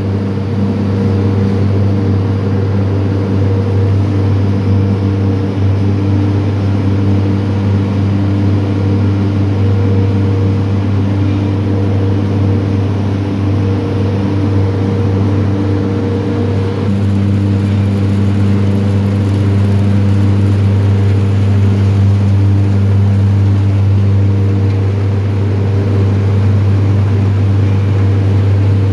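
Heavy sugar-mill machinery giving out a loud, steady, unbroken drone: a deep hum with a few higher pitched tones pulsing over it. The tone shifts slightly a little past halfway.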